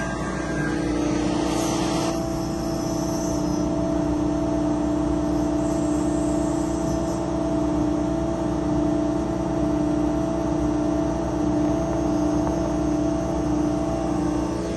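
1390 laser machine running: a steady mechanical hum with a slight wavering and no breaks.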